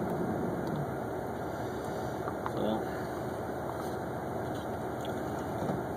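Steady low rumble of an idling car engine, with a few faint clicks and scrapes about two and a half seconds in.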